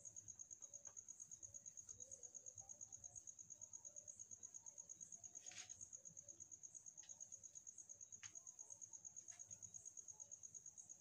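Near silence, with a cricket chirring steadily in a high, rapidly pulsing trill and a few faint ticks.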